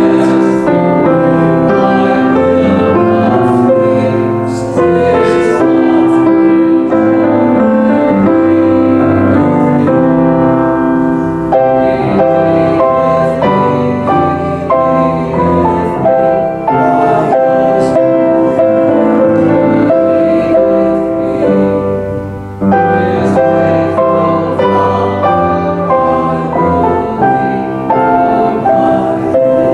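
Grand piano playing a hymn, with a brief break about three-quarters of the way through before the next phrase begins.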